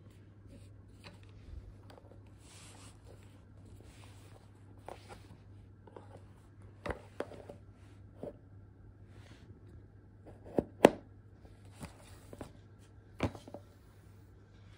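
Hard plastic clicks and knocks as a spray mop's handle tube is pushed into the mop head's swivel joint, the loudest a pair of snaps just under eleven seconds in, with soft rustling of handling between them, over a faint steady low hum.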